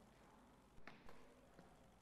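Near silence: room tone, with a couple of faint brief sounds a little under a second in.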